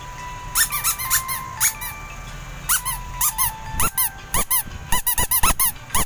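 Squeaky toy squeezed again and again: quick runs of short squeaks that rise and fall in pitch, with a few held as a steady squeal.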